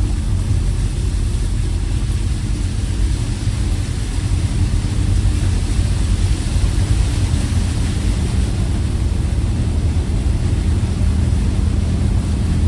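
Volkswagen T4 campervan engine running steadily under load, heard from inside the cab as the van drives through deep floodwater on the road. A rushing hiss of water and spray builds from about five seconds in.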